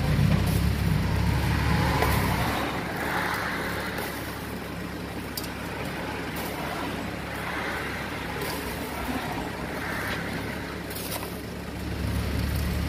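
A motor vehicle engine rumbling close by in street traffic. It drops away about two and a half seconds in, leaving a quieter background with a few faint clicks, and comes back near the end.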